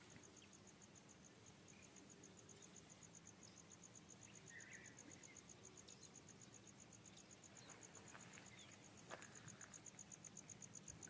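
Faint insect chirping, most likely a cricket: a steady, fast, even train of high pulses. One soft click comes near the end.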